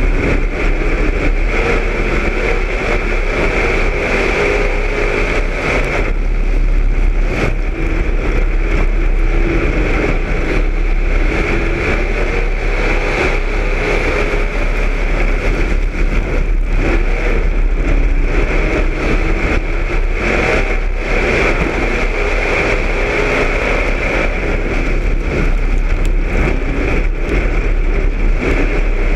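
Street stock dirt-track race car's engine heard from inside the car, running hard at racing speed, its pitch wavering as the throttle is worked. The level dips briefly a few times.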